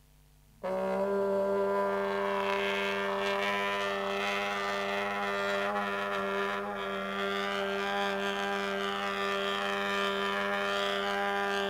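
A brass instrument starts a long, low held note about half a second in and sustains it steadily at nearly the same pitch.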